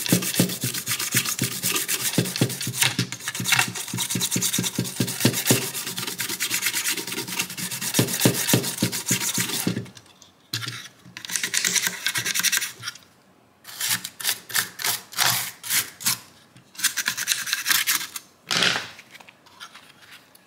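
Old toothbrush scrubbing the soldered side of a printed circuit board to clean off flux residue, in quick back-and-forth strokes. It scrubs without a break for about ten seconds, then in several shorter bouts with pauses between them.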